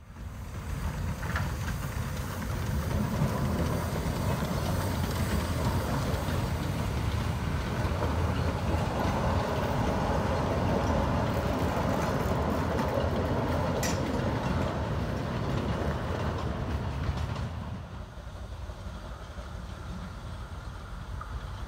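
Small narrow-gauge steam locomotive and its train running on the track, with a sharp click about fourteen seconds in. After about eighteen seconds it drops quieter as the train is heard further off.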